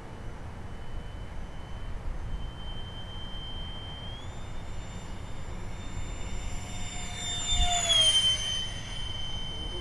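High whine of an electric ducted-fan RC jet in flight. The whine steps up in pitch about four seconds in as the throttle opens. Near the end the jet makes a fast low pass, swelling loudest and dropping in pitch as it goes by.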